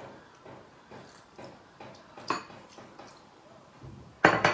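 Hot water being poured from a mug onto lumps of pap in a ceramic bowl and worked with a metal spoon, in soft, regular strokes about twice a second. A louder, sharp sound comes near the end.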